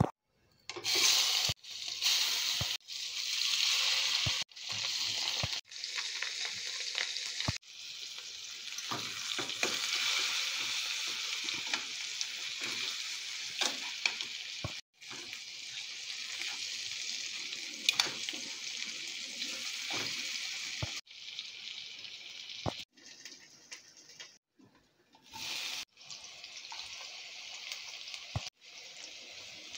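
Hot oil sizzling in a frying pan as spice-coated fish pieces shallow-fry, with scattered sharp pops. The sizzle stops and starts abruptly several times.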